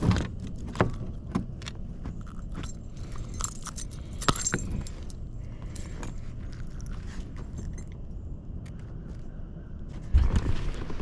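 Light metallic jingling and clicking of fishing tackle being handled, many small sharp clinks over a steady low rumble, with a heavier thump near the end.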